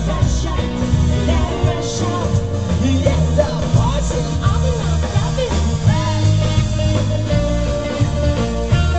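Live rock band playing amplified on stage: electric guitars, drum kit and keyboards, with a lead singer.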